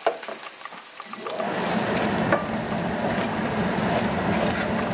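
Diced meat sizzling in a non-stick frying pan as a wooden spoon stirs it, with small scrapes of the spoon; the sizzle swells and grows louder about a second in.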